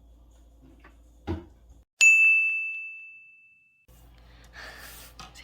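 A soft knock, then a single bright bell-like ding that rings out and fades over nearly two seconds, like a timer bell signalling the baking is done.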